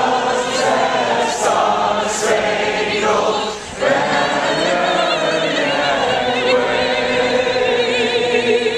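A group of voices singing together in long, held notes, with a short break about three and a half seconds in.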